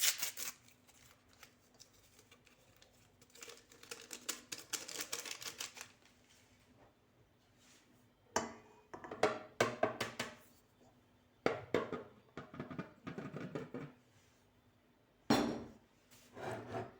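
Bursts of small clicks, taps and light knocks from kitchen utensils and containers being handled while dry ingredients are added to a mixing bowl, with quiet gaps between.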